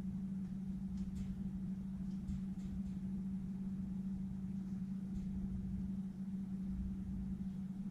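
Steady low motor hum with a low rumble beneath it, and a few faint light clicks.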